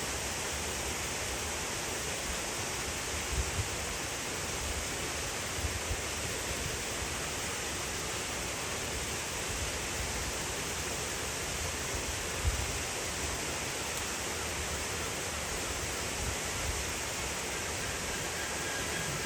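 Steady rushing of running water, with a few brief low thumps.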